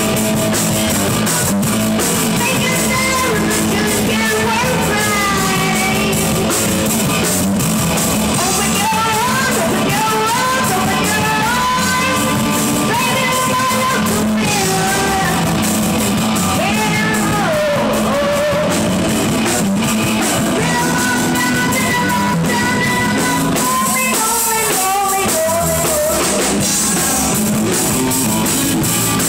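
Live rock band playing through amplifiers: drum kit, electric guitar and electric bass, loud and steady, with a melody line bending up and down over the top.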